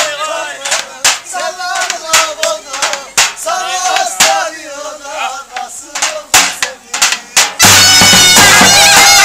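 Zurna playing a wavering folk melody over davul bass-drum strokes. About three-quarters of the way in, the music becomes suddenly much louder and fuller.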